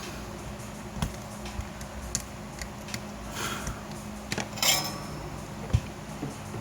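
Small metal clicks and clinks of hand tools working on an amplifier circuit board, with two short scraping hisses, over a steady low hum.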